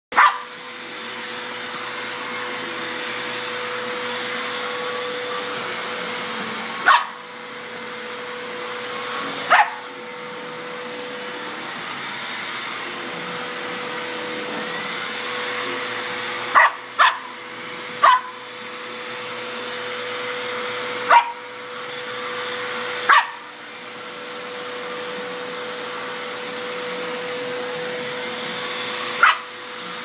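Vacuum cleaner running steadily with a constant whine, while a Border Terrier puppy barks sharply at it about nine times, singly and once as a quick double bark.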